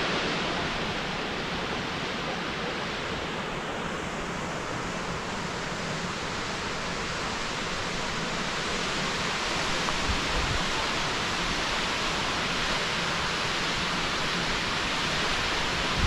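Steady rushing roar of the Ouzoud waterfall, an even wash of falling water.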